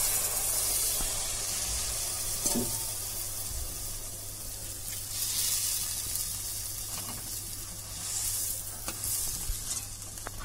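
Water poured into a hot kadhai of frying masala and crushed potatoes, sizzling and hissing while a steel spoon stirs. The hiss is strongest at first and swells again about five and eight seconds in.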